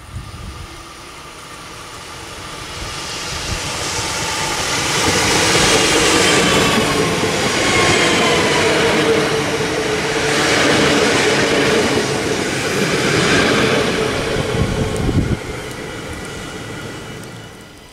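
SNCB AM08 'Desiro' (Siemens Desiro ML) electric multiple unit passing at speed. A rush of wheels and air builds as it nears and carries a motor whine that dips slightly in pitch as it goes by. It fades once the last car is past, about fifteen seconds in.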